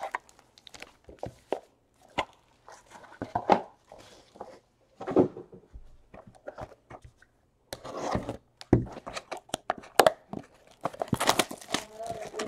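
Cardboard boxes of Panini Elite Extra Edition baseball cards and their plastic-wrapped packs being handled and set down on a table: scattered short taps and thuds with brief crinkles of wrapper plastic.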